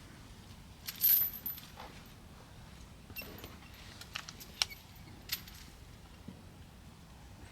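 Metal clinking and jingling: a loud jingle with a high ring about a second in, then several sharp metallic clicks spread over the next few seconds.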